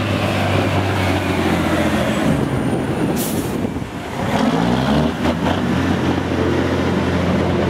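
Diesel semi truck engine running close by, revved up briefly about four seconds in, with a short sharp hiss of air released a little after three seconds in.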